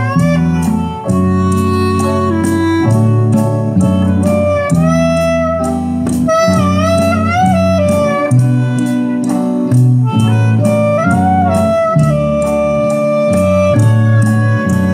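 Instrumental music played from a CD through a Kenwood R-SE7 amplifier into a pair of loudspeakers: a lead melody with sliding, wavering notes over a moving bass line and a steady beat.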